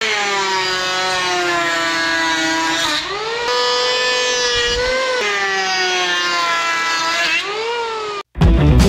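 Powerhouse PHM-1900BX electric hand planer running while shaving a wooden board: a loud, high motor whine that drops and climbs in pitch a few times as it works. It cuts off suddenly near the end, and rock music starts.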